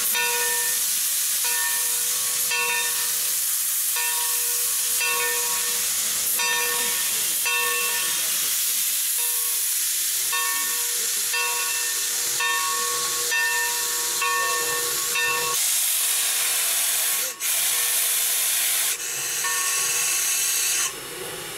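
Steam locomotive standing under steam, hissing steadily, with a pitched pulse repeating about once a second. The sound breaks off abruptly and changes a few times near the end.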